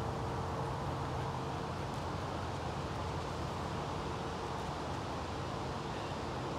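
Steady low hum over even background noise, unchanging throughout.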